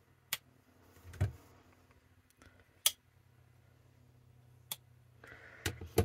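Slipjoint pocket-knife blades on Old Timer 8OT Senior Stockman knives snapping open against their backsprings: about five sharp, separate clicks a second or more apart, the loudest near the middle. There is a softer handling thump about a second in.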